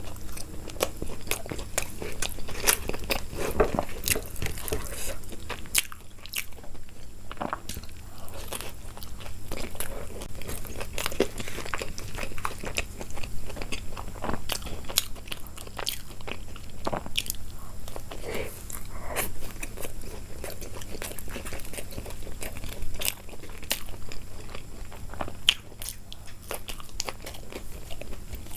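Close-miked eating: a person biting and chewing food, with many irregular crisp crunches.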